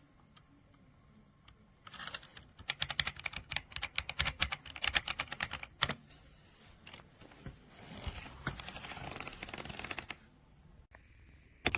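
Typing on an AJAZZ AK820 mechanical keyboard: rapid keystroke clacks in two runs, the first starting about two seconds in and the second, denser one after a short pause.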